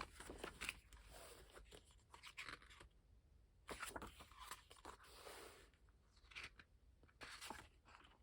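Faint paper rustling and crinkling with small clicks, in several bursts, as the stiff pages and inserts of a K-pop album photobook are handled and turned.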